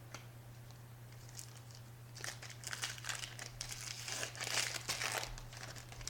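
Trading card pack wrapper being torn open and crinkled: a dense crackle of plastic foil for about three seconds, starting about two seconds in, over a steady low electrical hum.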